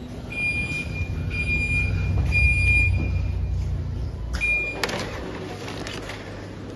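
A vehicle's engine running with a low rumble while its reversing alarm beeps about once a second, the beeps stopping after about four and a half seconds. Then a short clatter of plastic, like a shopping basket being picked up.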